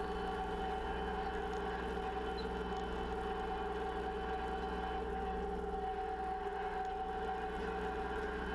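Kubota L3901 tractor's three-cylinder diesel engine running at a steady speed, a constant hum with a steady whine over it.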